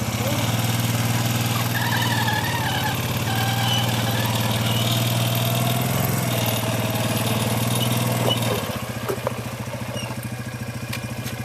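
Four-wheeler (ATV) engine running at a steady idle, dropping in level about eight and a half seconds in.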